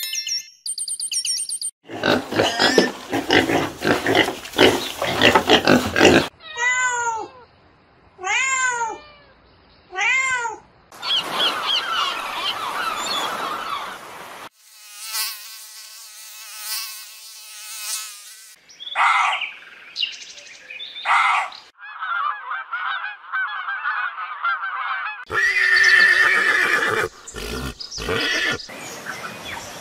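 A string of different animal sounds cut one after another, each lasting a few seconds. Among them are three separate rising-then-falling calls about a second and a half apart.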